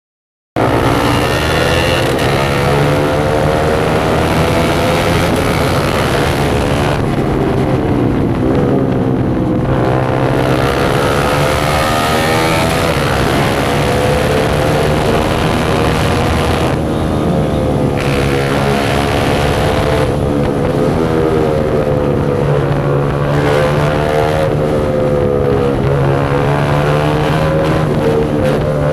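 Single-cylinder motorcycle running with its exhaust silencer opened up, loud and raw, its revs climbing and dropping over and over as it is ridden through the gears. It starts after a brief silence.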